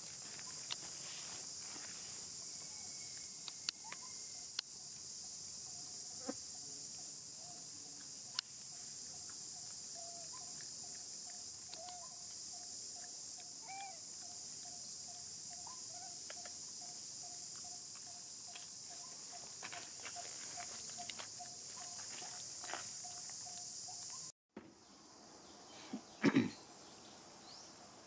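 A steady high-pitched insect drone, with a faint pulsing tone beneath it and scattered small clicks. The drone cuts off abruptly a few seconds before the end, and a short louder sound follows.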